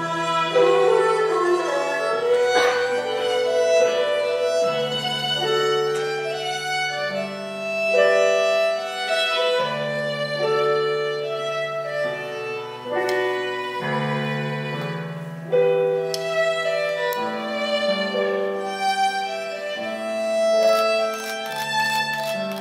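Live instrumental ensemble music led by a bowed string instrument playing a melody of held notes over a lower sustained line, with a few sharp accents.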